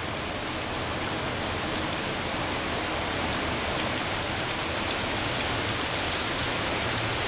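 Heavy thunderstorm rain falling steadily: a dense, even hiss with scattered close drop hits.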